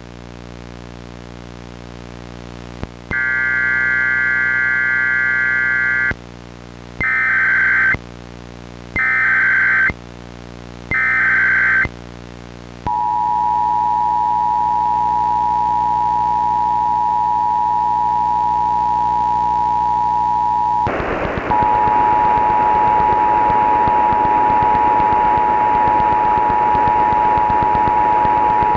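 Emergency Alert System tones over a low electrical hum: four shrill bursts of digital SAME header data tones, the first longer and the next three about a second each, then the steady two-note EAS attention signal. Loud static joins the attention signal for the last third.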